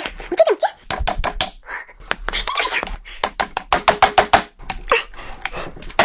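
Close-miked eating of king lobster: rapid, irregular wet chewing smacks and sharp clicks, several a second.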